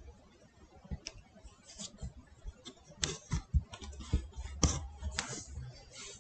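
Pastel pencils working on Pastelmat card: irregular scratches, taps and clicks, busiest in the second half.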